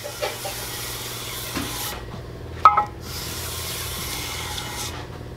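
A flat granite slab rubbed across the machined aluminium deck of a Toyota 7M cylinder head, lapping off the machining burr and tool marks. It is a dry scraping in two long stretches of about two seconds each, with a short knock between them.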